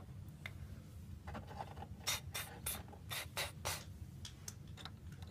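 A child's mouth-made spray noises: about six short, quick 'psst' hisses a couple of seconds in, imitating a perfume spray.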